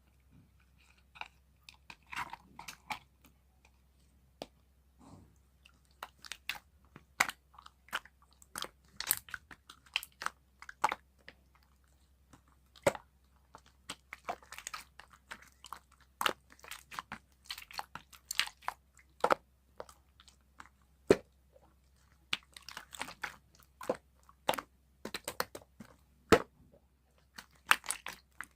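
Irregular crunchy clicking and crackling: many short, sharp snaps at an uneven pace, a few a second, with a short pause about twelve seconds in.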